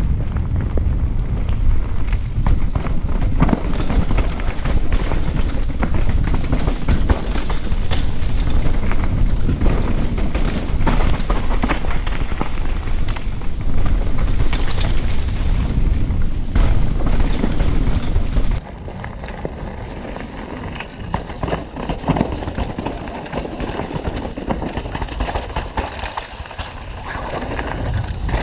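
Wind buffeting an action camera's microphone while a mountain bike rattles and clatters over rough trail at speed. About two-thirds of the way through, the noise drops suddenly to a quieter, thinner ride noise.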